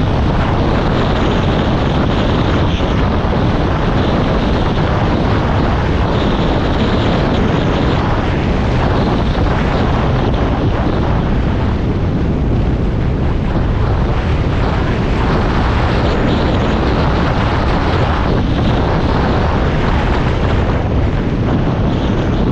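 Loud, steady rumbling noise of a moving vehicle, with wind buffeting the microphone.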